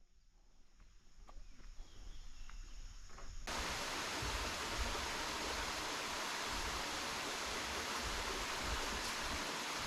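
Steady rushing of a stream, starting abruptly about three and a half seconds in, with faint low bumps under it; before that only a few faint clicks.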